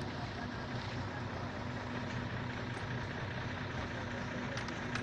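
Mobile truck-loading belt conveyor running under load: a steady, even machine hum with a low drone.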